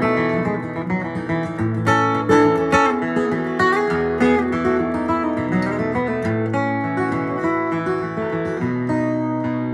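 Steel-string acoustic guitar played solo, capoed, with picked chords and ringing melody notes and no singing.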